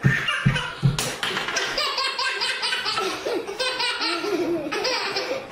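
A baby laughing in a long run of rapid, repeated bursts, with a few low thuds in the first second.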